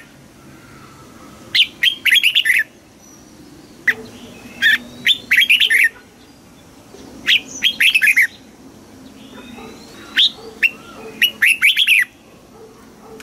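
Red-whiskered bulbul singing: short phrases of rapid, quick-falling whistled notes, repeated every second or two.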